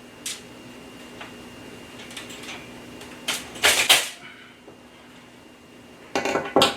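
Knocks and clatter of a metal baking tray and roasting rack being handled while a whole roasted fish is flipped over. There is a single click soon after the start, a loud cluster about three and a half seconds in and another pair of knocks near the end, over a steady low hum.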